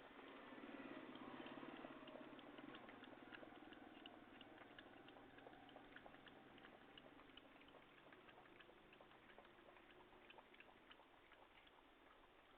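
A dog lapping water: a faint run of quick, repeated laps, growing slightly quieter toward the end.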